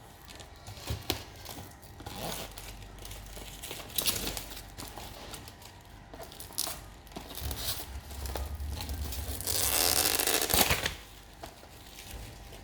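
Paper and cardboard packaging being opened by hand: crinkling, tearing and small knocks, with a louder stretch of rustling near the end.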